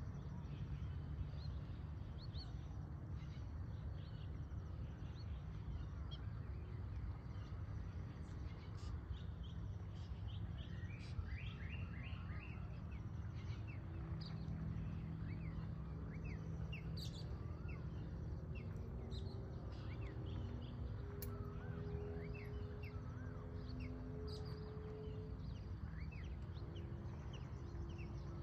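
Morning outdoor ambience: birds chirping and calling, with a quick run of repeated notes about eleven seconds in, over a steady low rumble. A faint low drone joins about halfway through.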